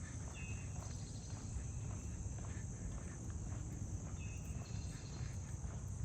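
Footsteps of a person walking, under a steady high-pitched chorus of insects such as crickets, with a short high chirp near the start and again about four seconds in.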